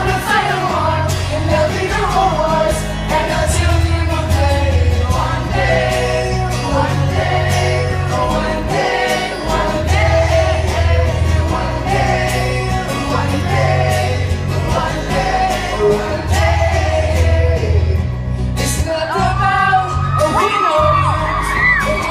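Live acoustic pop song: sung vocals over guitar and bass accompaniment, with shrill screams from the audience rising near the end.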